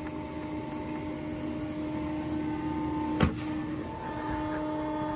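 Steady hum of the running tractor and planter machinery, an even tone that doesn't change. A single sharp clack about three seconds in.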